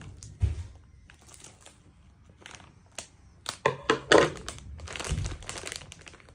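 Crinkly plastic snack packaging crumpling and crackling as it is handled and opened. There is a low thump about half a second in and a loud burst of crackling around four seconds in.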